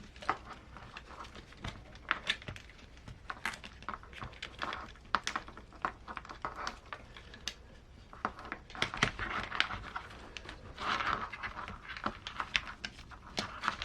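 Irregular light clicks, taps and rustling of small plastic parts and wires being handled as the stock ESC/receiver's leads are threaded out of an RC crawler chassis, with a denser stretch of rustling from about nine to eleven seconds in.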